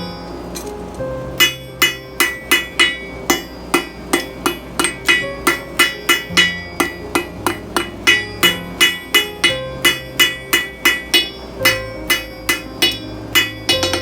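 Hand hammer forging a bar of mild steel on an anvil: a steady run of sharp, ringing blows at about three a second, with a break of about a second near the start.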